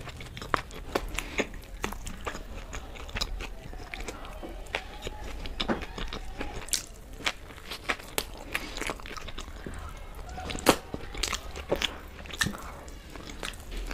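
Close-miked eating: chewing and biting with irregular sharp crunches and wet mouth clicks.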